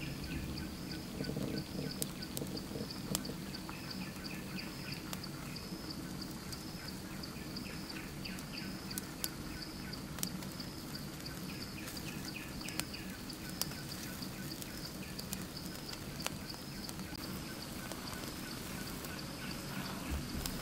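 Rural outdoor ambience: a high, steady pulsing call of insects, bird chirps and trills, and scattered sharp clicks and pops.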